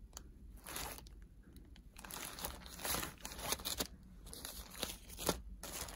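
Plastic wrapping crinkling and rustling in irregular bursts, with a few sharp clicks, as someone rummages for a plastic-wrapped phone case.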